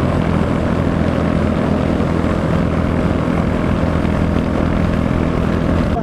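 Royal Enfield Meteor 350's single-cylinder engine running steadily under load in fifth gear on an uphill climb, held there without a downshift, over steady wind noise.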